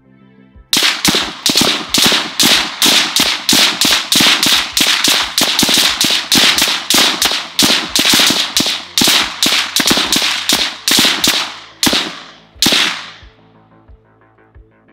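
A gun fired rapidly in a magazine dump, about three sharp shots a second for some twelve seconds. The fire slows for the last two shots, which ring out and fade.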